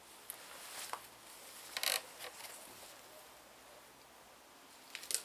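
A few short scraping, rustling handling noises, the loudest about two seconds in and another near the end, as grease is worked by hand into the lubrication hole of a Husqvarna 125R string trimmer's gear head.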